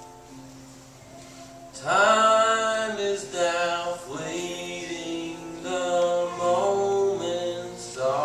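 A young man singing a hymn or worship song solo at a microphone, his voice coming in about two seconds in with a loud phrase and carrying on in phrases over soft, sustained keyboard chords.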